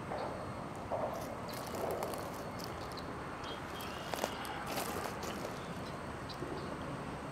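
Diesel freight locomotive moving slowly through a rail yard: a steady low engine rumble with scattered clanks of wheels and couplers on the track.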